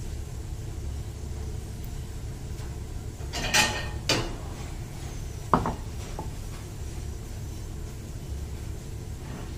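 A few sharp clinks of ceramic dishes: two close together, then a louder short clink that rings briefly. A steady low rumble runs underneath.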